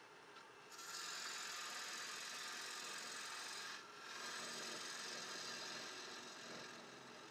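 A gouge cutting across the face of a spinning she oak bowl blank on a wood lathe makes a steady shearing hiss as the shavings peel off. The cut breaks off briefly about four seconds in, then resumes and tapers off near the end. The lathe's motor hums faintly underneath.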